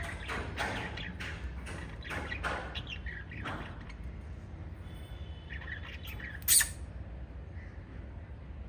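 Small pet parrots chirping and squawking in quick short calls, busy for the first few seconds and then sparser. One loud, sharp squawk comes about six and a half seconds in. A steady low hum runs underneath.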